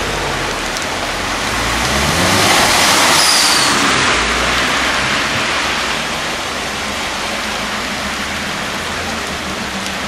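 Heavy rain falling steadily on a flooded street. A car drives through the standing water, and its tyres and engine swell louder about two to four seconds in, then fade back under the rain.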